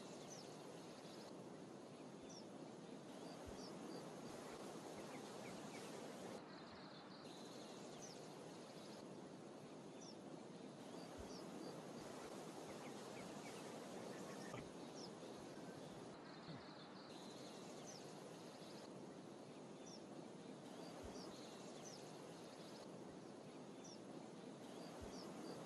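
Faint outdoor field ambience: a steady hiss with scattered short, high bird chirps and a few soft low thumps.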